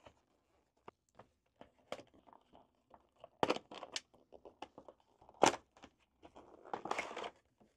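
A small cardboard product box being opened by hand: scattered light taps and scrapes, sharp clicks about three and a half and five and a half seconds in, and a short rustle of the packaging near the end.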